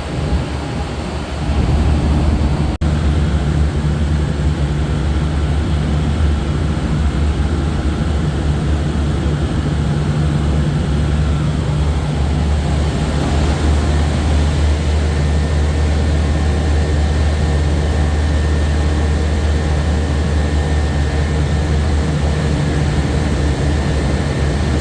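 Large commercial HVAC equipment running with a steady, loud low hum and drone, broken by a brief dropout about three seconds in.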